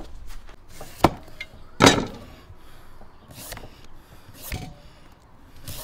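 Two sharp knocks, the second louder, then several short scraping strokes of a hand vegetable peeler taking the skin off a winter melon.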